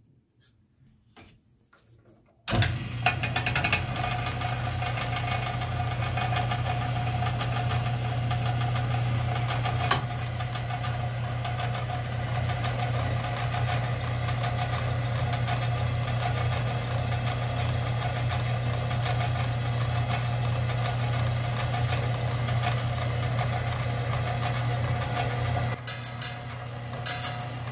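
Covington slab saw switching on with a sudden start about two and a half seconds in, then running steadily with a strong low motor hum as its blade cuts into a slab of labradorite. The sound drops somewhat in level near the end.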